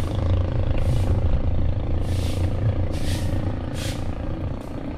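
Motorcycle engine running steadily under way, with low road and wind rumble. Several short hissing rushes come through over the top.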